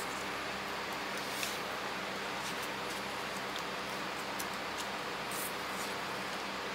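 Steady background hiss with a faint low hum, and a few faint soft ticks scattered through it.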